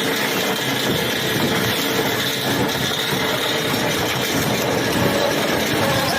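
A heavy engine-driven machine running steadily, with a dense, unchanging mechanical noise.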